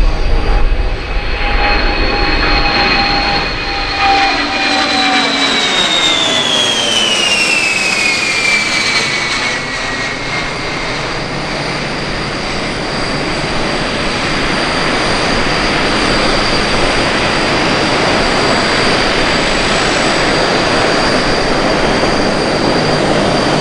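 Boeing E-3 Sentry's four TF33 turbofan jet engines on a low flyby: a high engine whine drops in pitch as the aircraft passes, about five to ten seconds in, then gives way to a steady jet noise as it banks away.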